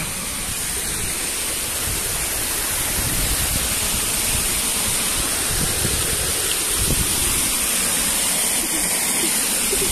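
Steady rush of flowing stream water running over rocks in a shallow channel.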